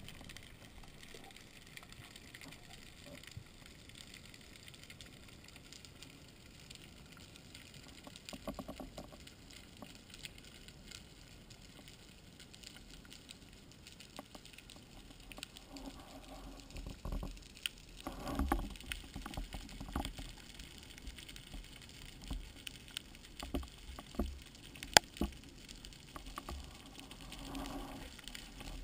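Underwater sound picked up by a camera mounted on a speargun. A faint steady hiss runs through it, and from about halfway irregular swishes, low knocks and a few sharp clicks come in as the diver moves through the water.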